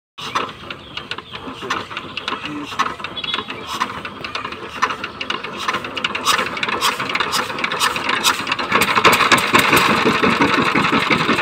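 Power tiller (walking tractor) engine running with a rapid, rattling beat that grows louder, then runs markedly louder and more evenly from about nine seconds in as it is opened up.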